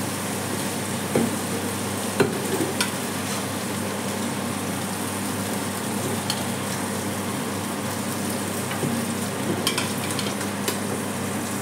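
Meat pieces sizzling steadily as they fry in a stainless steel pot. A handful of sharp clinks stand out as pieces are dropped in and a fork knocks against the pot.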